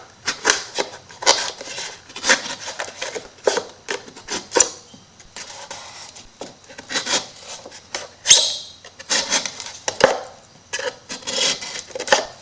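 Hands working paper and MDF wood craft pieces on a table: an irregular run of short rubbing and scraping strokes with a few light knocks, one longer, louder scrape a little past the middle.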